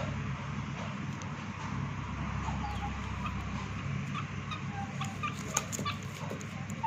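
A chicken clucking in short, scattered calls, with a few sharp taps on the concrete floor near the end.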